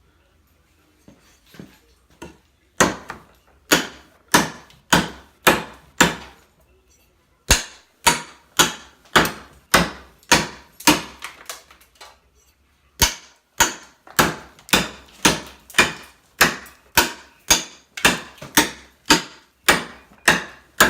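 Hand-forged cleaver, made from a lawnmower blade, chopping into wood: sharp, separate strikes about one and a half a second, in three runs with short pauses between them. It is a chop test of the freshly sharpened edge.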